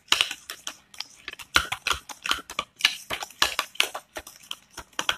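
A spoon stirring a thick mayonnaise-and-cream dressing in a bowl, clinking and scraping against the bowl in quick, irregular strokes.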